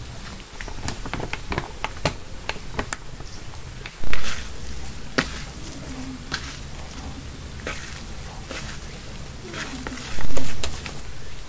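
Hands kneading and squeezing mashed potato and flour in a plastic bowl: soft wet squishing with many small clicks and crackles, and two louder squelches about four and ten seconds in.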